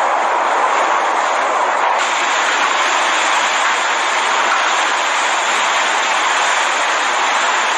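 Steady rushing noise of a storm, growing brighter and hissier about two seconds in.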